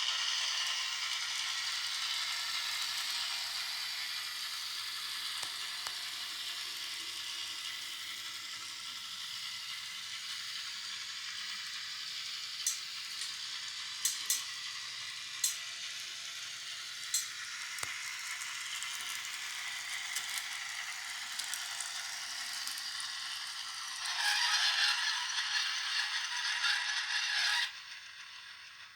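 Minitrix N-scale LINT 41 diesel railcar model running, its sound decoder playing diesel railcar sound through a tiny speaker that gives it a thin, tinny tone, with a few sharp clicks in the middle. Near the end a louder sound comes in for a few seconds and cuts off suddenly.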